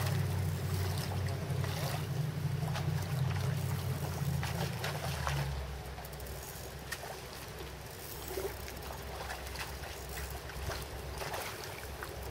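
A small motor humming low and steady, which drops to a lower pitch about five and a half seconds in, with a few faint clicks over it.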